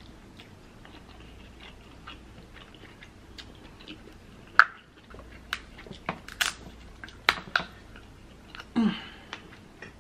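Close-miked eating: chewing and wet mouth smacks on soft lobster and crab meat in creamy alfredo sauce. Faint at first, then a run of sharp wet clicks and smacks in the second half, with a brief louder mouth sound near the end.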